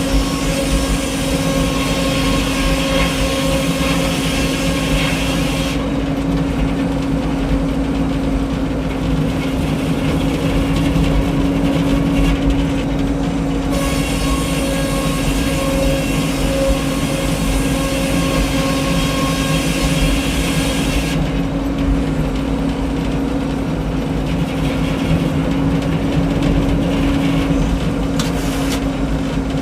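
Frick 01-C circular sawmill running with a steady engine drone. A higher rushing hiss rises over it for stretches of about six or seven seconds as the blade cuts through a log: once ending about six seconds in, again in the middle, and starting again near the end.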